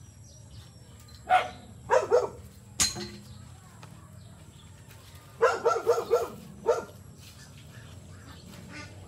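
Short, loud animal calls: three about a second in, then a quick run of about five around the middle and one more just after. A single sharp click falls between them.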